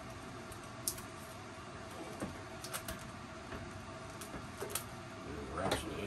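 Light scattered clicks and taps of a rubber propane hose being handled and coiled by hand, over a faint steady hum. A louder scraping swish comes near the end.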